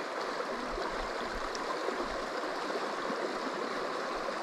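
Shallow river flowing over a cobble bed: a steady rushing of water.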